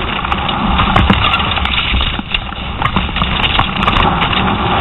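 Wind buffeting an outdoor camcorder microphone: a steady low rumble and hiss, with scattered clicks and knocks.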